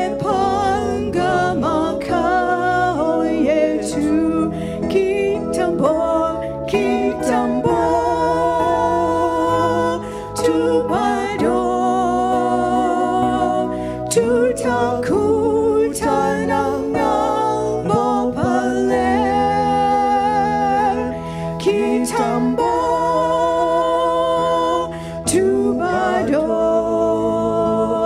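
A hymn sung by a man and a woman into microphones, with long held notes that move from pitch to pitch in a slow tune.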